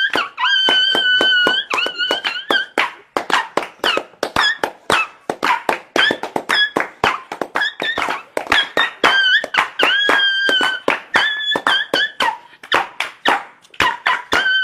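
Rapid sharp taps, about four to five a second, with high squeaky tones held for a second or two over them at intervals; the pattern repeats as a loop.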